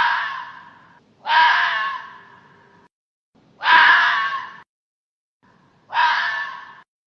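Hoary fox (Lycalopex vetulus) calling: four rasping cries, each about a second long, starting abruptly and fading away, with short silences between.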